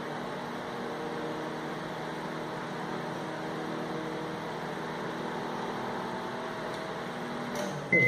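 Whirlpool microwave oven running with its outer cover off, heating water: a steady hum that shows the magnetron and its high-voltage circuit working. A few faint clicks come near the end.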